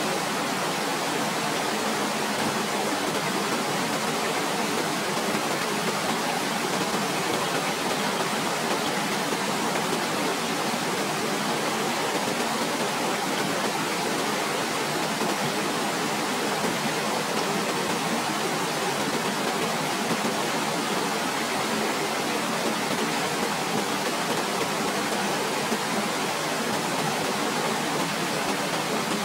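A waterfall's steady, even rush of falling water.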